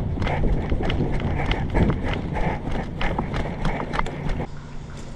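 Running footsteps, about four a second, over a low rumble. They stop suddenly about four and a half seconds in.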